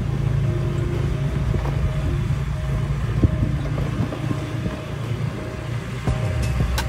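An engine running steadily with a low drone.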